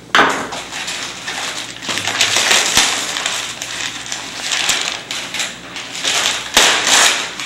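Brown paper and cardboard packaging being torn and crumpled by hand: continuous crinkling and tearing, louder about two and a half seconds in and again near the end.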